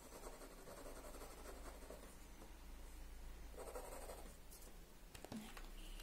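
Graphite pencil scratching softly on drawing paper while shading a portrait, growing stronger around the middle, with a light click near the end.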